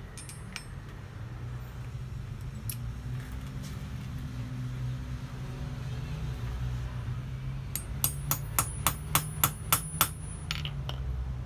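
Small hammer peening a copper rivet at the pivot of a pair of hand-forged steel scissors on the anvil: a quick run of about a dozen light, ringing taps, roughly four a second, starting about eight seconds in. A few scattered clicks of metal being handled come before them.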